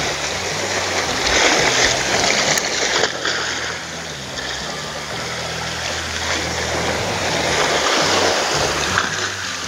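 Sea waves washing against a rocky shore, swelling and easing: louder in the first few seconds, softer around the middle, then building again.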